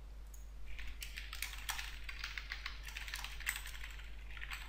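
Typing on a computer keyboard: a quick, irregular run of key clicks that starts about a second in, as a line of text is typed.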